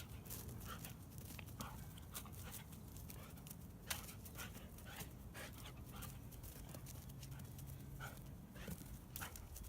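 A dog, heard as scattered small clicks and ticks over a faint low hum.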